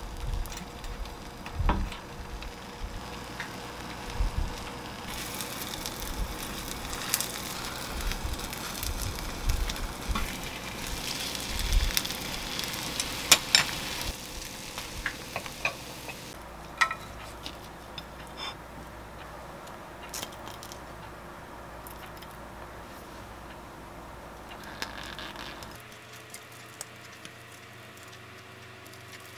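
Beaten egg sizzling in a rectangular nonstick egg pan, with a wooden spatula knocking and scraping against the pan as the thin omelette is rolled up. The sizzle fades about halfway through, leaving only a few small clicks of handling.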